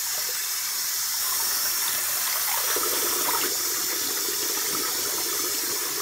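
Sink tap running steadily as a Makeup Eraser microfibre cloth is held under the stream and soaked. About halfway through, the splashing turns fuller and lower.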